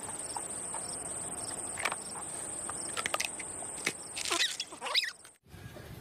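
A steady, high-pitched insect trill over a faint background of outdoor sound. About four seconds in come a few squeaky calls that rise and fall, and the sound cuts off abruptly a little after five seconds.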